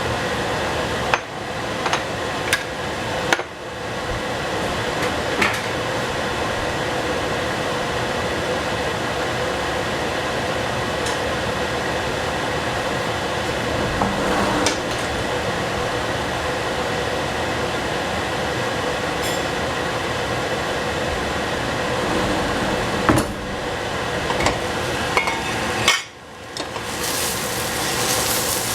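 Kitchen cooking sounds: a steady hiss, broken by scattered knocks and clinks of a utensil against a pan and dishes.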